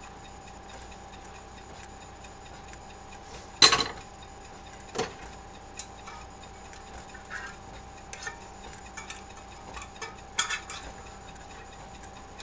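Scattered sharp clinks and taps of metal utensils and a can against stainless steel cooking pots, the loudest a little under four seconds in, over a steady faint hum.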